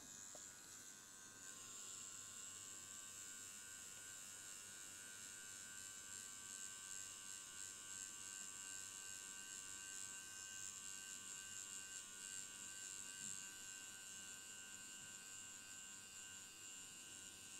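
DragonHawk X8 wireless pen tattoo machine running steadily at about 5850 RPM with a magnum needle while filling in, a faint, even buzz.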